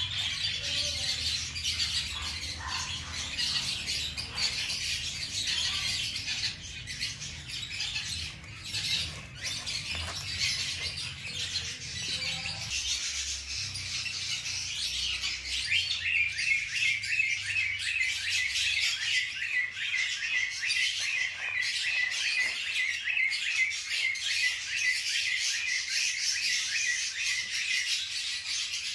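Continuous high-pitched chirping and twittering, turning into a fast, even trill about halfway through.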